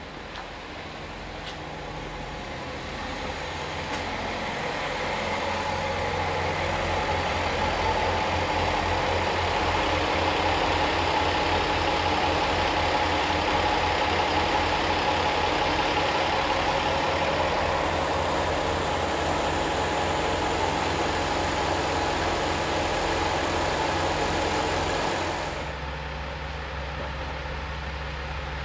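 Diesel railcar engine of the 'Aru Ressha' excursion train (a converted KiHa 47) running close by. It builds up over the first few seconds and holds as a steady, pulsing rumble. About 25 seconds in it drops off abruptly to a quieter low hum.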